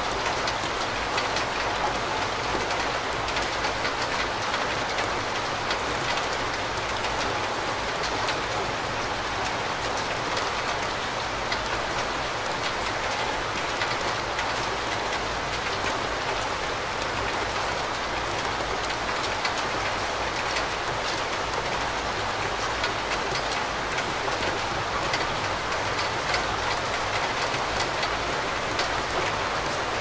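Steady rain falling, a dense, even patter of drops that holds at the same level throughout.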